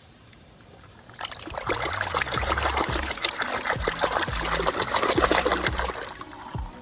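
Running water splashing and trickling, as when toys are rinsed. It starts about a second in and eases off near the end.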